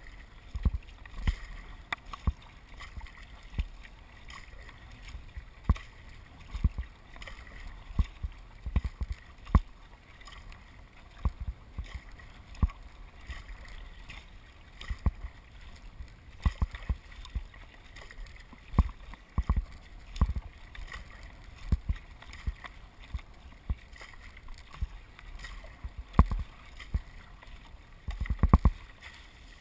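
Kayak paddling on the sea: water splashing and sloshing, with frequent irregular short thumps and knocks.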